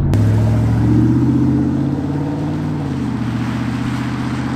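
Ford F-150 Lightning's V8 engine under way, its note rising for about a second and then dropping back and running steady, with road and wind noise.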